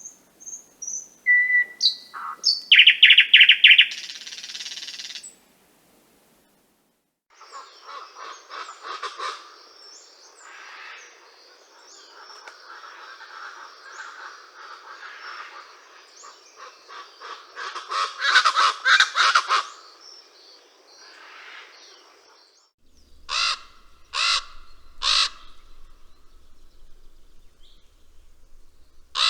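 A sequence of bird recordings: chirps and a fast buzzing trill from a small bird, then after a short gap a dense chattering chorus of many birds calling at once for about fifteen seconds, then three loud harsh calls about a second apart near the end.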